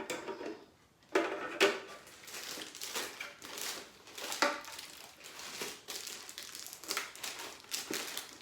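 Packaging wrapping being pulled off a new appliance: irregular crinkling and rustling with sharper crackles, as the many layers of wrapping prove hard to open.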